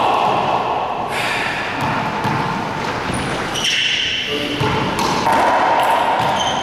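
Racquetball rally: repeated sharp cracks of the hollow rubber ball off racquets and the court walls, echoing around the enclosed court.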